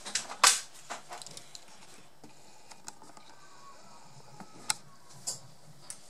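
Small clicks and scrapes of soldering work on a laptop motherboard: the soldering iron and solder wire touching the DC power jack and the board. A quick cluster comes in the first second and a half, loudest about half a second in, then two sharp clicks near the end.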